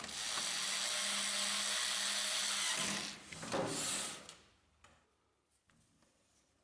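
Small cordless electric screwdriver running steadily for about three seconds as it drives a screw into the printer's plastic frame. A second, shorter burst follows about a second later.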